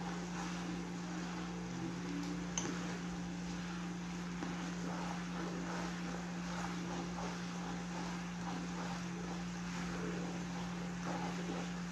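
Sugar-and-water syrup boiling hard in a saucepan on a gas burner, bubbling as a plastic spoon stirs it, over a steady low hum; one sharp click about two and a half seconds in. The syrup is close to its point, the thin syrup sought.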